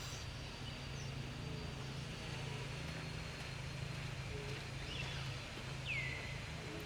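Outdoor ambience: a steady low rumble, with a faint thin high tone above it and one short call that falls in pitch about six seconds in.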